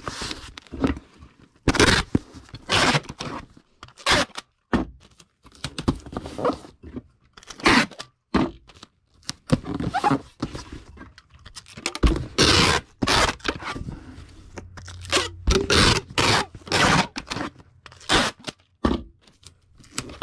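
Parcel being packed: irregular scraping, crunching and rustling of a cardboard box and packing material being handled.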